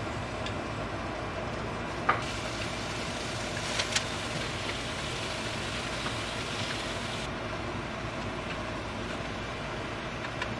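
Thin slices of beef sizzling in a hot stainless steel frying pan, the sizzle growing brighter about two seconds in as more meat goes in. Metal tongs click against the pan about two seconds in and again around four seconds.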